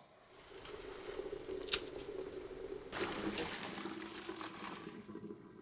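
Hot pasta water and spaghetti poured from a pot into a metal colander, the water splashing and draining through the holes, louder from about three seconds in. One sharp clink a little under two seconds in.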